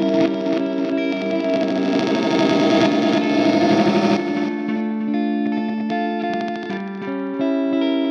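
Electric guitar played through a Catalinbread Csidman glitch delay: held chords turn into a dense, smeared wash of repeats for about the first half, then break into choppy, clicking stutter fragments.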